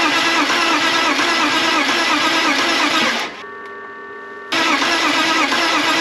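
BMW M54 straight-six engine cranking over on its starter in two runs, with the regular rise and fall of each compression stroke. It stops for just over a second about three seconds in, with a steady hum in the gap, then cranks again. This is cranking for a spark test.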